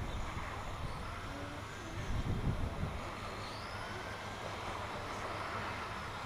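Electric motors of radio-controlled racing trucks whining as they drive the circuit, the pitch rising and falling with throttle. A low rumble of wind on the microphone about two seconds in.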